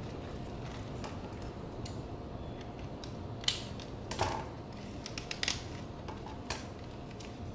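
Plastic mesh sleeve and plastic nursery pot of a potted orchid being handled: soft rustling with a handful of sharp plastic clicks and crinkles, the sharpest a few seconds in.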